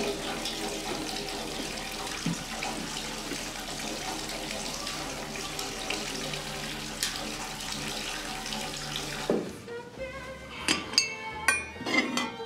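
Tap water running in a steady stream into a brass basin partly full of water, with background music under it. About nine seconds in the water stops and sharp clinks of dishes and cutlery follow.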